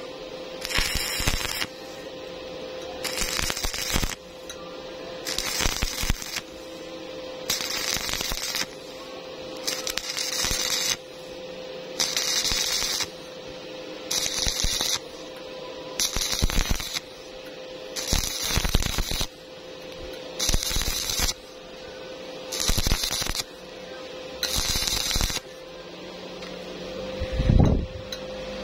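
Stick-welding arc crackling and hissing in short bursts of about a second, roughly every two seconds, as the electrode is struck and lifted in a stop-start technique while laying a bead on thin steel. A steady hum runs underneath, and a short loud thump comes near the end after the arc has stopped.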